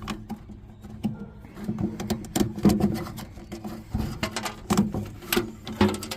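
Irregular clicks, taps and rubbing as a temperature-sensor wire and its plug are worked through an opening in a pellet smoker's sheet-metal housing, over a steady low hum.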